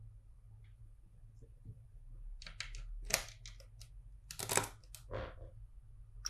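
Plastic LEGO bricks clicking and clattering as pieces are picked up and pressed together. The sound comes in a few short clusters of sharp clicks, loudest around the middle.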